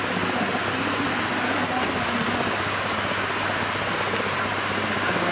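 Steady rush of water: a high-pressure hose jet spraying down onto bathing elephants and the river, with faint voices underneath.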